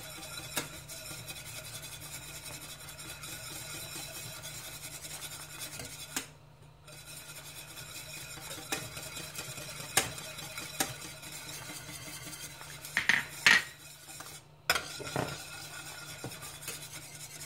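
Wire whisk stirring a simmering cream sauce in a metal saucepan: a steady swishing with scattered clinks of the wires against the pan, and a pair of louder clinks about four seconds before the end. The flour just added is being whisked in so the sauce doesn't go lumpy.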